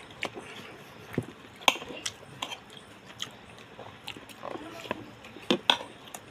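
A person eating close to the microphone: wet chewing and lip smacks, with scattered sharp clicks and taps.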